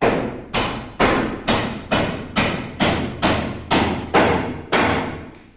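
Hammer driving nails into timber ceiling brandering overhead: eleven steady blows, about two a second, each ringing in the bare room.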